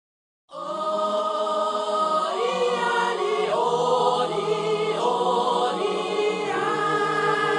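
Intro music of sustained, layered tones, some wavering slowly in pitch, starting about half a second in and holding at an even level.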